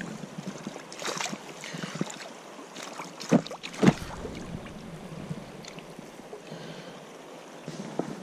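Fast river current rushing and rippling, with splashes from a brown trout moving in a landing net held in the water. Two sharp thumps come close together about three and a half seconds in.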